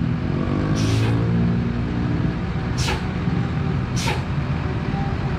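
Hino RK8 R260 coach's diesel engine running low as the bus pulls away slowly, with three short hisses of compressed air from its air system, about one, three and four seconds in.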